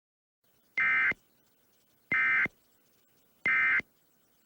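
Emergency Alert System end-of-message signal: three short bursts of SAME digital data tones, each about a third of a second long and spaced about a second and a half apart, marking the end of the alert.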